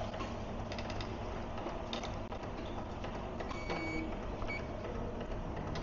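Soda fountain dispenser running as a cup is filled with Fanta, a steady machine hum and pour. A short high tone sounds twice a little past the middle.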